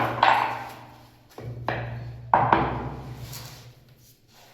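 Three pairs of sharp knocks, each fading off briefly, over a low steady hum that dies away about three seconds in.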